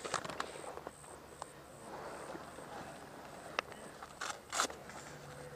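Airsoft gear being handled close by on dry leaf litter: rustling and scraping, with a few sharp clicks, the loudest pair about four seconds in.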